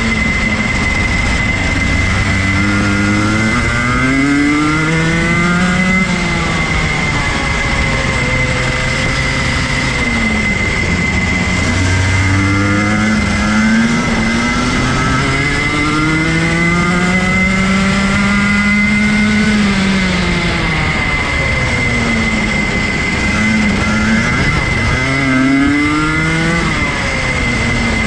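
Rotax Junior Max kart's 125 cc two-stroke single-cylinder engine heard from onboard. It climbs in pitch for several seconds as the kart accelerates, then drops away as it slows for the corners, three times over. A steady high whine sits above the engine throughout.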